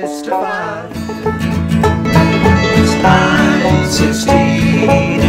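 Acoustic bluegrass band playing: banjo picking over acoustic guitar, with upright bass notes coming in about a second in.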